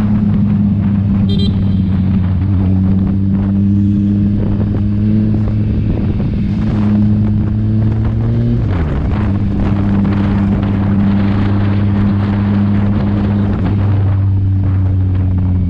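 Kawasaki Ninja 1000's inline-four engine and exhaust pulling at a steady, moderate engine speed under way, with wind noise on the microphone. About nine seconds in the revs dip briefly and then settle back to a steady pitch.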